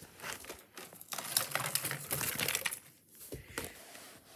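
Plastic fidget toys clattering and rustling as they are taken out of a box: a dense run of small clicks and knocks for about three seconds, then a few scattered ticks.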